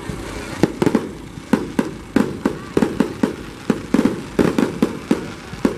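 Aerial fireworks bursting overhead: a quick, irregular run of sharp bangs, several a second, with no pause.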